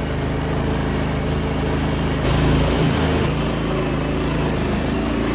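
An engine running steadily, with a brief rise in level and change of pitch about two and a half seconds in.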